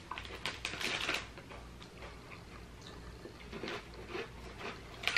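Crunching of thin, crispy chocolate chip cookies being chewed: irregular crisp crackles, densest in the first second or so, with crinkling of the small plastic cookie pack as a hand reaches into it.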